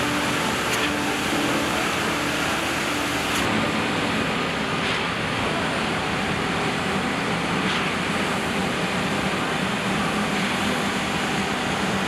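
Steady rushing noise of a concrete pour, with the concrete pump running and wet ready-mixed concrete flowing out over the rebar mat. A few faint clicks break in now and then.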